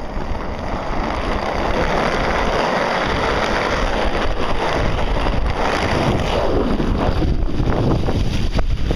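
Inline skates rolling through shallow floodwater, kicking up a continuous rush of splashing spray, with wind buffeting the microphone.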